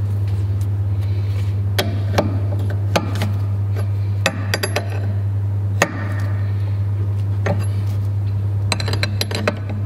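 Metal clicks, taps and clinks of steel hydraulic hose fittings and an open-end wrench being handled and fitted onto the ports of a hydraulic drive motor, scattered irregularly throughout, over a steady low hum.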